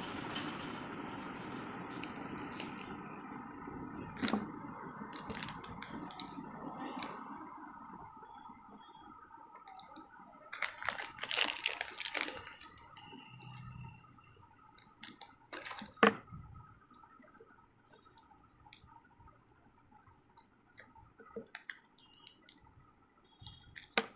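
Plastic and foil sweet wrappers crinkling and rustling as they are picked up and handled, in irregular crackly bursts, loudest a little before the middle.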